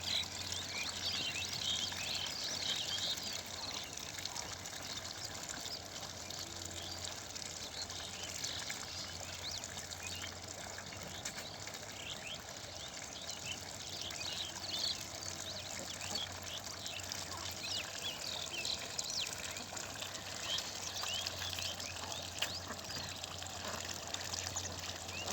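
Water trickling and splashing steadily, with many short high chirps scattered through it.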